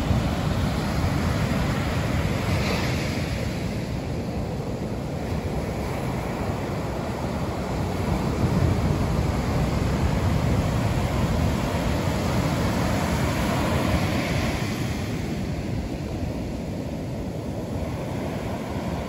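Ocean surf breaking and washing up a sand beach, a steady rushing noise that swells and eases with each wave, with wind buffeting the microphone.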